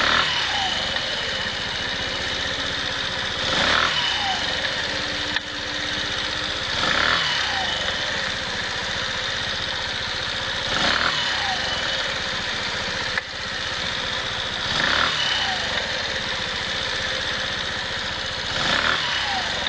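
A 125 cc motorcycle engine running on the stand, revved briefly about every four seconds and falling back to idle each time. It is making an abnormal noise whose cause is not identified.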